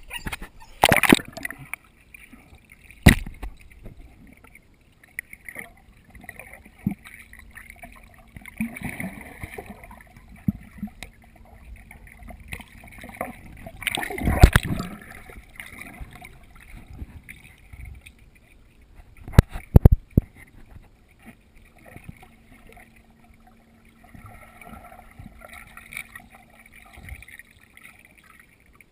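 Pool water sloshing and splashing at a camera half underwater as a dog swims close by, with a few sharp knocks against the camera, the loudest about a second in, three seconds in, midway and twice near twenty seconds in. A faint steady hum runs under parts of it.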